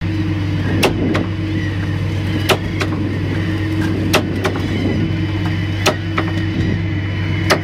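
Fishing launch's engine running steadily at a constant pitch, with sharp knocks every second or two.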